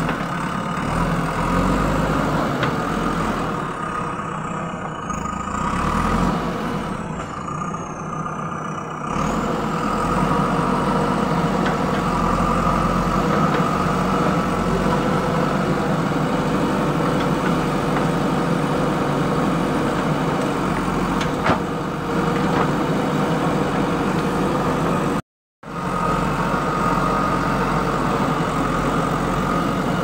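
JCB backhoe loader's diesel engine running steadily. The sound cuts out completely for a moment about 25 seconds in.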